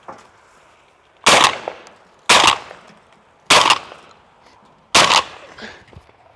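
Four shotgun shots about a second apart, each cracking sharply and dying away in a short echo, fired at pigeons flushing from a silo.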